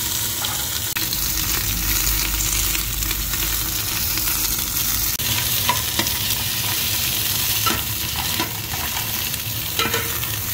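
Quartered onions sizzling in hot olive oil in an aluminium pressure cooker, stirred with a long-handled metal utensil that gives a few light clicks against the pan from about the middle on.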